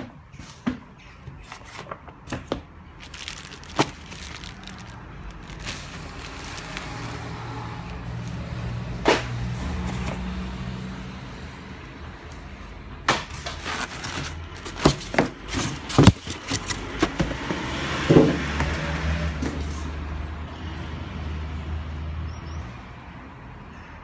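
Handling noises, most likely the printer and its packing being unpacked: a string of sharp knocks and clicks over rustling that swells twice and fades, with a low hum beneath.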